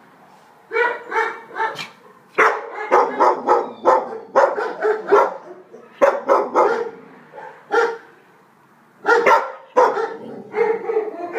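Young Alsatian (German Shepherd) puppy, about five months old, barking in quick runs of short barks with pauses between, starting about a second in.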